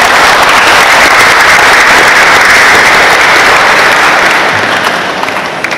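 Audience applauding: loud, even clapping that rises at once and slowly tapers off near the end.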